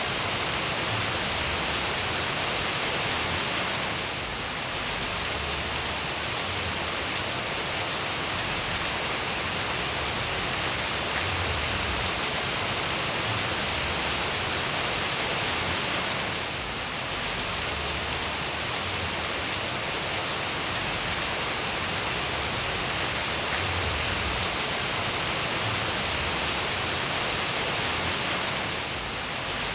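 Steady rain falling, an even hiss heaviest in the high end, with a brief dip in level about every twelve seconds.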